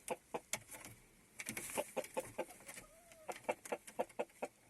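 Chickens at roost clucking in a rapid run of short, repeated clucks, about four or five a second, with one brief drawn-out note about three seconds in; the birds have just been disturbed in their evening roost.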